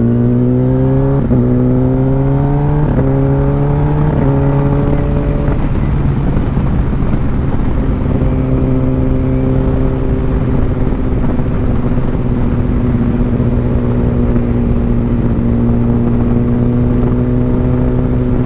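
Kawasaki ZX-10R inline-four motorcycle engine accelerating through several quick upshifts, each a short drop in pitch before the note climbs again. After about five seconds it settles into a steady cruising note under a rush of wind noise.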